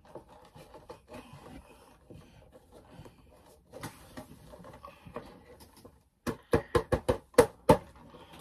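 Boxed Funko Pop vinyl figures being handled: light rustles and clicks of the cardboard-and-plastic boxes, then about six seconds in a quick run of about eight sharp knocks.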